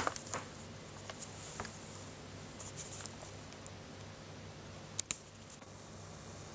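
Quiet room tone with a steady low hum, broken by short sharp clicks and taps: a cluster near the start and two close together about five seconds in.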